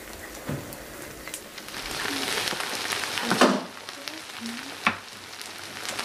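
Fried rice sizzling in a hot pan, the sizzle growing louder about two seconds in, with a few sharp knocks of a utensil against the pan.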